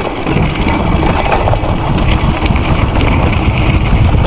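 Gios FRX mountain bike descending a gravel dirt track at speed: wind rushing over the microphone and tyres rolling over loose stones, with frequent small knocks and rattles from the bike over the bumps.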